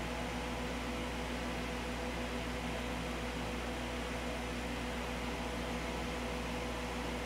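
Steady electrical hum with a fan-like hiss, unchanging.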